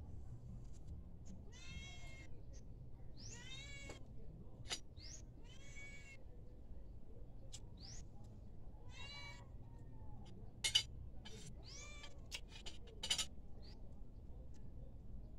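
A cat meowing repeatedly, about five drawn-out meows with short rising chirps between them. Interspersed are a few sharp clinks, the loudest about eleven and thirteen seconds in, of cutlery on a plate.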